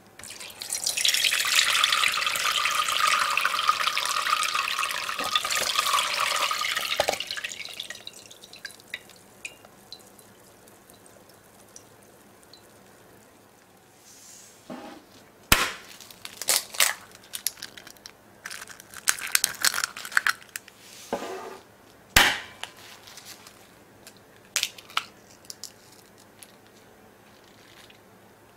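Liquid poured through a fine-mesh strainer, a loud steady splashing hiss for about seven seconds that trails off into drips. Later come scattered clicks and two sharp knocks.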